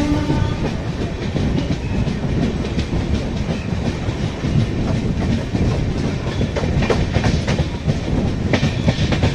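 A passenger train coach running over the rails, heard at an open door: a steady rumble with wheel clickety-clack, and a few sharp clicks about seven and eight and a half seconds in as the wheels cross rail joints or points. A locomotive horn blast cuts off just at the start.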